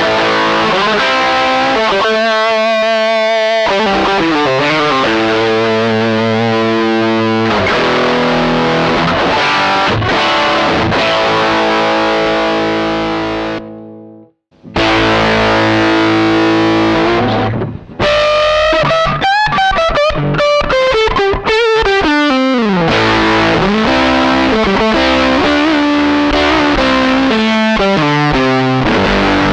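Electric guitar played through a chain of cheap distortion and fuzz pedals, strumming sustained, overdriven chords. A couple of seconds in, one chord warbles, and about halfway through the sound cuts out briefly. After that, notes slide down in pitch before the chords pick up again.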